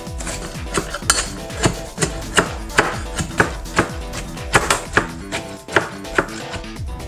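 Kitchen knife chopping grilled red onion and grilled pineapple on a cutting board, sharp chops about two a second, over background music.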